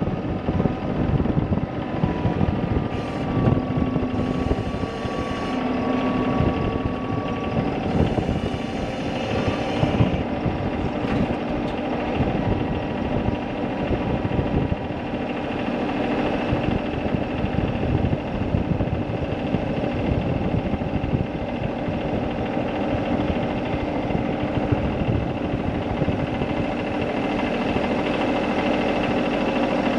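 An engine running steadily, with a brief spell of added high hiss a few seconds in.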